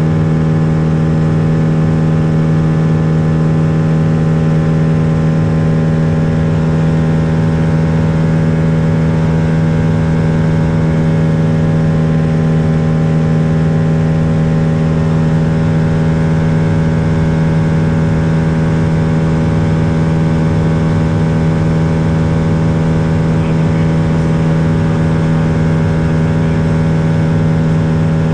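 Lake Buccaneer LA-4-200 amphibian's four-cylinder Lycoming IO-360 engine and pusher propeller droning steadily on approach for landing, with a strong low hum and no change in power.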